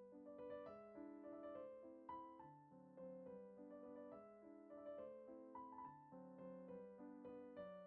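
Quiet background piano music: a gentle melody of struck notes, several a second.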